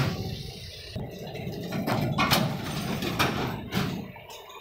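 A low rumble with about five sharp knocks or clanks scattered through it, the rumble fading near the end.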